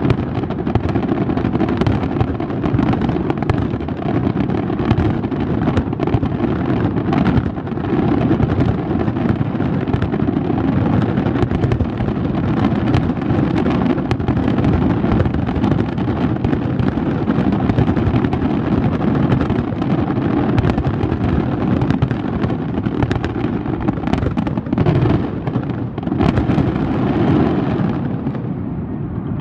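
Fireworks display: a dense, continuous barrage of aerial shell bursts, many sharp bangs overlapping with crackling and a steady deep rumble. It eases off slightly near the end.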